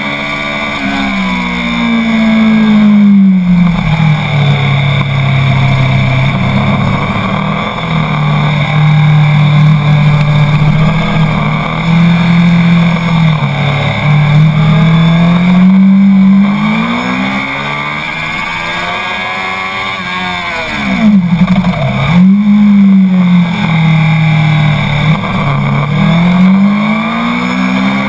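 Honda CBR 1000's four-cylinder engine heard on board at full track pace, its note holding, climbing and dropping with throttle and gear changes. The pitch climbs high about two-thirds of the way through, then falls sharply and climbs again as the bike brakes and gets back on the throttle.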